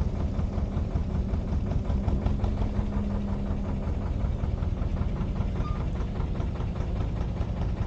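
Narrowboat engine running steadily at low cruising revs, with an even knocking beat.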